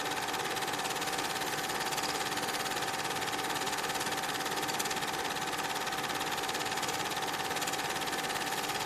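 Cine film projector running: a steady mechanical whir with a fast, even clatter from the film mechanism and a constant hum.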